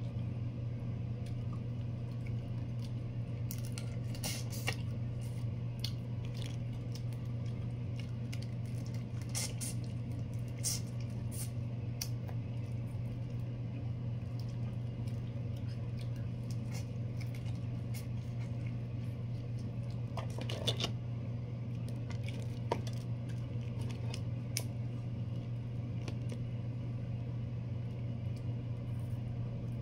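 Large prawn shells cracking and clicking as they are peeled and pulled apart by hand, with chewing, over a steady low hum.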